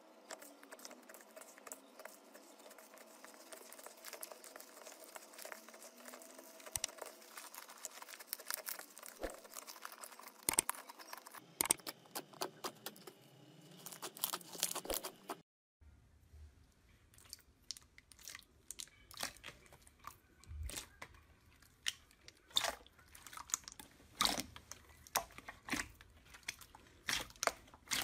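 Hands stretching, pressing and squeezing slime: soft, wet handling noise with many short, sharp clicks, coming thicker in the last part. The sound changes abruptly twice.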